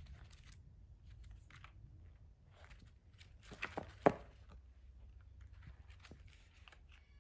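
Pages of a thick hardcover picture book being handled and flipped by a capuchin monkey's hands: a scattered series of short paper flicks and rustles, with the loudest snap about four seconds in.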